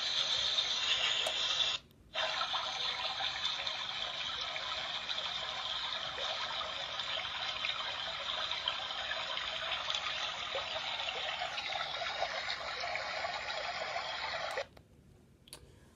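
Wavhello Soundbub baby sound machine playing one of its water-sound presets through its small built-in speaker: a steady rushing hiss like running water. It cuts out briefly about two seconds in, resumes, and stops about a second before the end.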